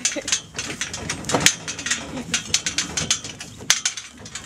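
Clattering and rattling of a light horse-drawn lorry and its harness on the move, a quick irregular run of clicks and knocks with one louder knock about one and a half seconds in.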